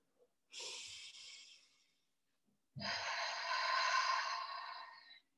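Two long, audible breaths close to the microphone: a shorter one fading out, then a louder, longer one that stops short near the end.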